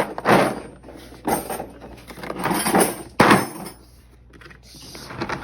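Metal hand tools and a plastic tool case being handled: a run of sharp clacks and rattles, the loudest about three seconds in.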